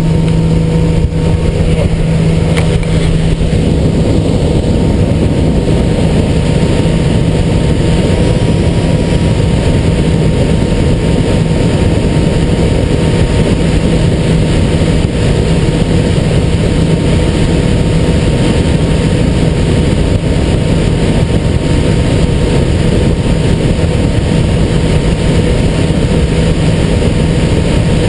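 A boat's motor running at a steady speed, with a constant low hum and a dense rushing noise over it as the boat travels.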